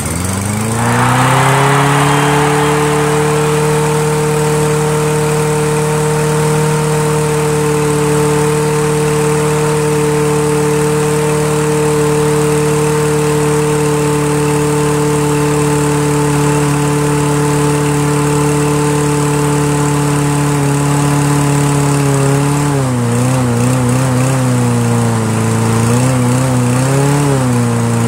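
Lawn-Boy 20-inch mower's Kohler single-cylinder engine catching on old gas, spinning up in the first second and then running steadily at a high speed, which the owner puts down to a stiff, corroded linkage joint. Near the end the engine speed wavers up and down several times.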